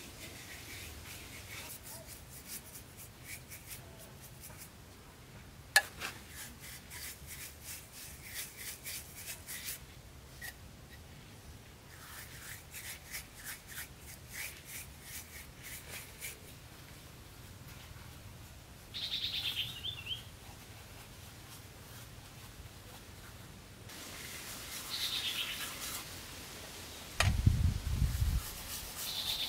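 Bouts of quick, even scraping or rubbing strokes, about four or five a second, with a sharp knock about six seconds in. A bird chirps a few times, and a low rumble comes near the end.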